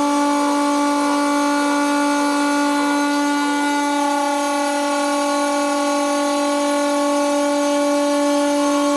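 CNC router spindle cutting quartz stone, running with a steady, unchanging whine at one held pitch over a hiss of grinding.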